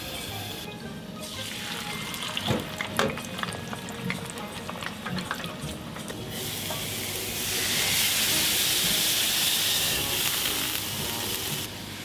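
Frying food crackling and popping in hot fat, then from about six seconds a louder steady hiss of oil bubbling in a deep fryer, which stops suddenly near the end. Background music plays underneath.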